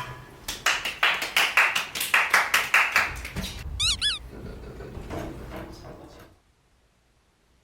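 A quick run of about a dozen sharp hits, three or four a second, then two short high squeaks.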